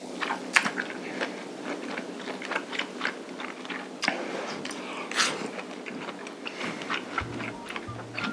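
Close-miked eating sounds: chewing and smacking of rice and stir-fried octopus, with many short, sharp, wet mouth clicks.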